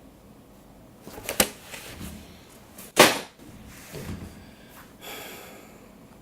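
A few sharp knocks or clacks, the loudest about three seconds in, with fainter handling knocks around them and a short high squeak about five seconds in.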